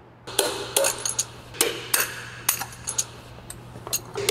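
Irregular sharp metal knocks and clinks, about a dozen, from tools and engine parts as pistons and connecting rods are taken out of a stripped engine block.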